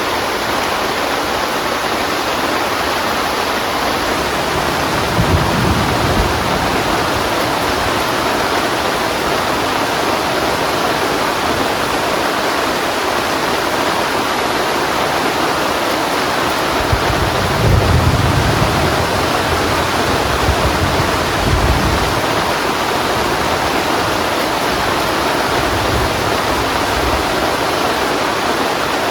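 Heavy rain falling steadily, with low rumbles of thunder about five seconds in and again in a longer roll from about seventeen to twenty-two seconds.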